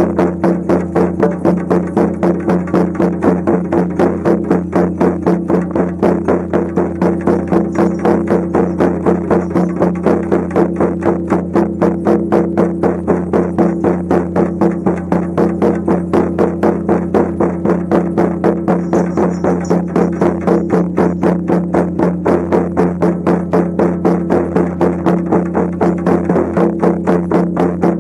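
Shamanic frame drums beaten in a steady, even rhythm of about four beats a second, over a steady low drone.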